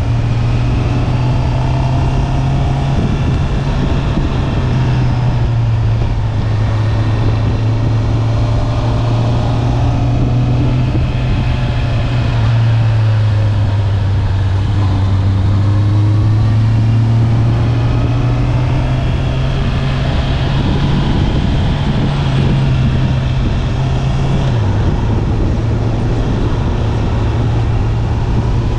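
Stock 2020 Honda CB650R inline-four engine and exhaust running at steady revs under way, with a brief drop and recovery in pitch about 24 seconds in.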